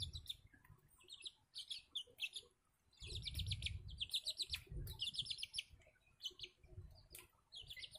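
Faint chirping of small birds: quick high trills in short bursts, repeated throughout, with a few sharp clicks and a soft low rumble in the middle.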